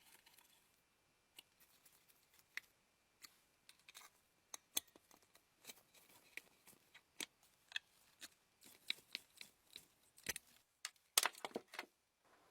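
Irregular small clicks and taps of parts being handled during the restoration of an antique hair dryer, with a short burst of louder clattering near the end.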